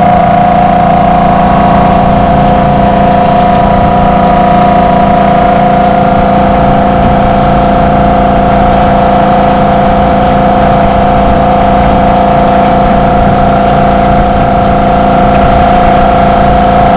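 Rainman portable watermaker's electric motor and high-pressure pump running steadily, a loud, even hum with fixed tones that does not change.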